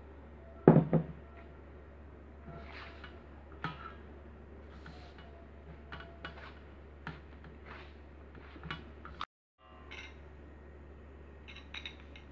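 Scattered clinks and knocks of a steel mixing bowl and glass bowls being handled on a table while dough is mixed by hand, the loudest a clatter just under a second in. A steady low hum runs underneath.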